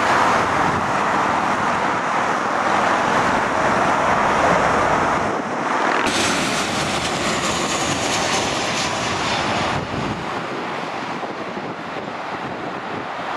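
Jet engine noise from Boeing 737 airliners landing: a steady rushing roar from a jet on short final. About six seconds in it switches to a jet on the runway, heard as a brighter, higher hiss with faint falling whines. Near ten seconds it switches again to the steadier rush of another jet on approach.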